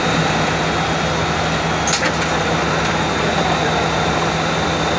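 Steady drone of airport ramp machinery: a constant low hum under an even rushing noise, with a thin high whine held throughout. A couple of faint clicks come about two seconds in.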